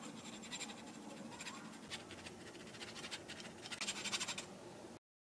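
Cocoa powder being sifted over a drink: the soft scratchy rustle of a fine-mesh sieve being shaken and tapped in several quick flurries, the busiest near the end, stopping abruptly.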